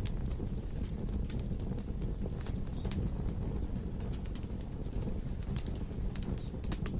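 Wood logs burning in a fireplace: a steady low rumble of flames with irregular sharp crackles and pops, several a second.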